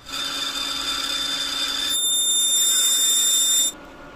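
Twist drill boring into a brass workpiece turning in a lathe: a loud, high-pitched cutting whine with steady ringing tones, whose tone changes about halfway through, stopping suddenly near the end.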